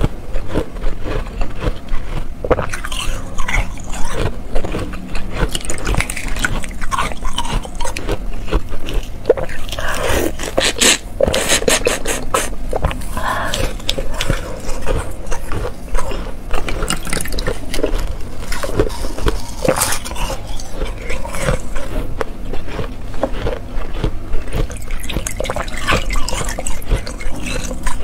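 Close-up ice eating: slushy ice frozen in a plastic water bottle being bitten, crunched and sucked on, with dense wet crackling and scraping.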